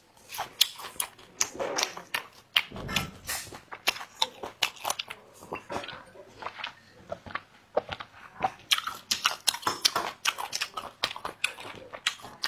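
Close-miked chewing of fatty, tendon-streaked beef snack pieces, with many sharp, wet crunching clicks. The chewing thins out briefly around the middle, then comes back dense.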